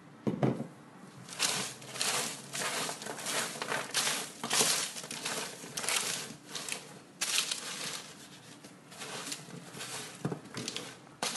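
Gloved hands tossing oiled vegetables and potato wedges on a tray lined with baking paper: the paper crinkles and rustles in irregular bursts as the food is pushed around, with a soft thump just after the start.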